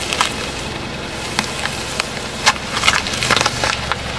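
A whole green apple crunching under a slowly rolling car tyre: a few sharp cracks, then a close run of cracks about three seconds in as it bursts flat, over the car's steady low engine hum.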